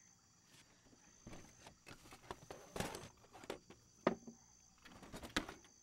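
Soft footsteps on a floor: a string of irregular light steps and knocks, the loudest about three, four and five and a half seconds in.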